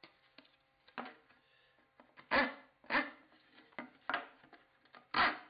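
Hand rasp scraping across the end of a wooden tenon to round over its corner so it fits a square-cornered mortise: about half a dozen strokes at an uneven pace, the firmest ones near the middle and near the end.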